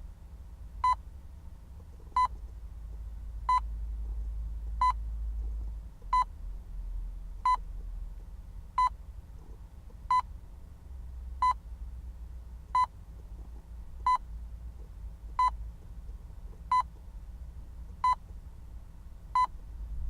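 Hospital patient monitor beeping: short, single-pitched beeps repeating evenly about every 1.3 seconds, fifteen in all, over a low background rumble.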